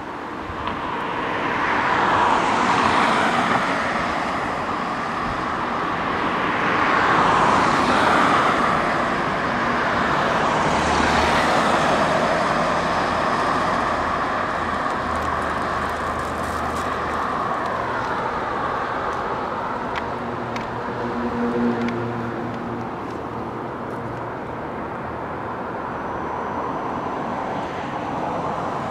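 Road traffic: cars passing one after another, their tyre and engine noise swelling and fading, with the loudest pass-bys in the first twelve seconds. Around two-thirds of the way in, a vehicle's engine hums briefly, and a faint thin high tone starts near the end.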